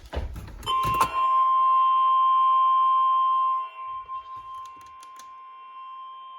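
NOAA Weather Radio warning alarm tone (the 1050 Hz alert tone) sounding for the weekly test: one steady, single-pitched tone. It begins about a second in after a few clicks and crackles, and drops sharply in volume a little past halfway.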